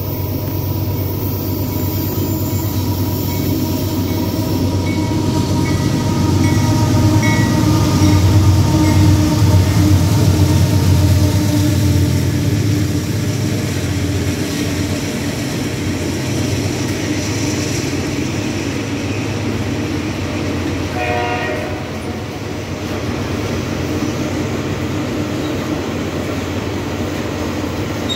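Heavy freight train passing close by: the diesel-electric locomotives of a loaded iron-ore train go by with a deep rumble that is loudest about a third of the way in. The loaded ore gondola wagons follow, rolling on the rails with a steady rumble. A brief high ringing tone comes about three-quarters of the way through.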